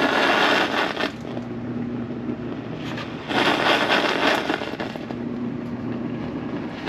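Faulty appliance running with a steady hum, broken every three and a half seconds or so by a loud crackling, hissing burst lasting about a second or two. The appliance is full of water and overheating its cord.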